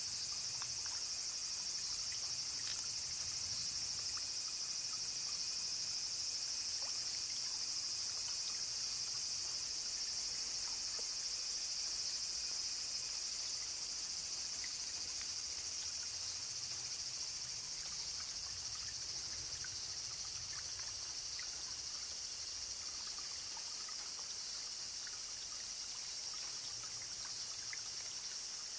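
A steady, high chorus of insects, with a faint trickle of spring water and scattered small drips beneath it.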